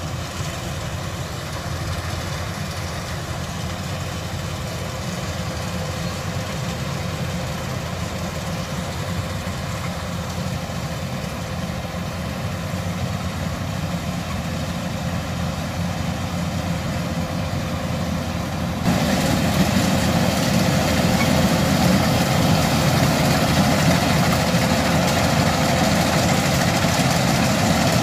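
Kubota DC70 combine harvester's diesel engine running steadily. About two-thirds of the way through, the sound suddenly gets louder and fuller.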